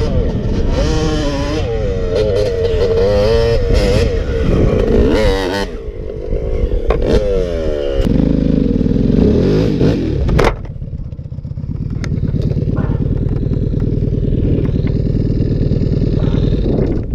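Off-road motorcycle engine revving up and down as the bike is ridden over rough ground, with a few sharp knocks. About ten seconds in it drops back to a steady idle.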